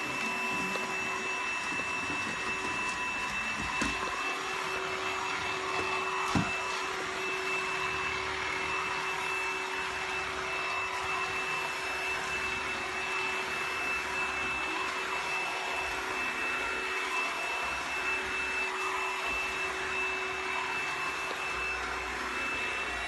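Dibea D18 cordless stick vacuum running steadily: a hiss of rushing air over a high, constant whine. A light knock comes about six seconds in.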